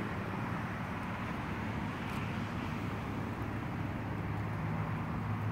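Steady outdoor background noise: an even hiss over a low hum, with no distinct event.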